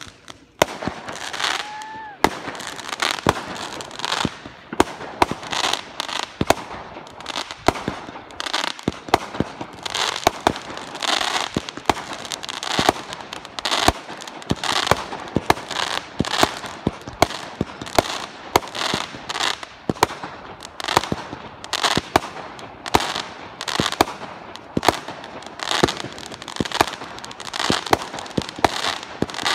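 Firework cake firing shell after shell: a steady run of sharp launch pops and aerial bangs, two or three a second, with a crackling hiss between them. A brief rising whistle comes near the start.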